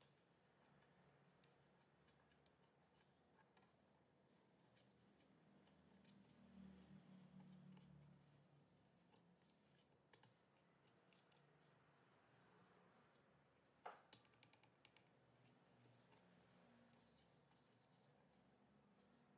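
Near silence, with faint scraping and clicking of a plastic spoon stirring toothpaste and powder into a paste in a small steel bowl, and a sharper click about two-thirds of the way through.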